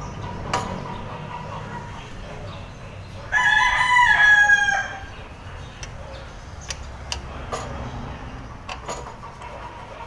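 A rooster crowing once, a call about a second and a half long starting about three seconds in. A few light clicks and knocks come from an engine cover being handled.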